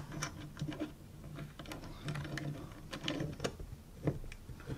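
A small screw being driven into a SmallRig metal camera cage with a hex key: a run of irregular light metal clicks and scrapes, the sharpest about four seconds in.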